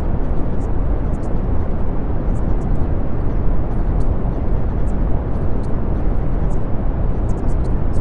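Steady brown noise: an even, deep hiss heaviest in the low end and thinning out toward the top, with faint irregular high ticks flickering over it.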